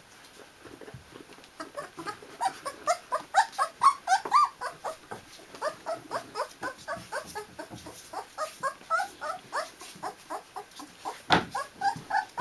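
A two-week-old Newfoundland puppy squeaking and whimpering in a rapid run of short, high cries, several a second, as it crawls to its mother to nurse. A single sharp knock sounds near the end.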